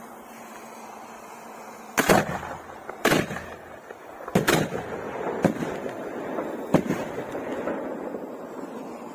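Aerial fireworks going off: about six sharp bangs spread over five seconds, starting about two seconds in, with a noisy rumble between them that fades out.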